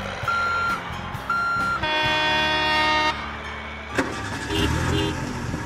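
Dubbed toy-vehicle sound effects: two short, evenly spaced beeps of a backing-up alarm, then a car horn held for just over a second. A click follows about four seconds in, then a few short, weaker vehicle sounds.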